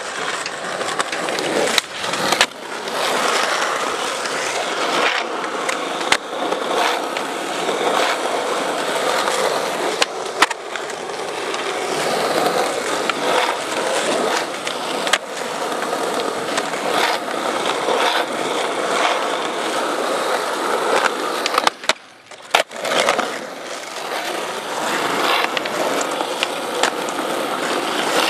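Skateboard wheels rolling over smooth concrete, a steady rolling noise broken now and then by sharp clacks of the board. A little over twenty seconds in, the rolling stops for a moment, then the board clacks down and rolls on.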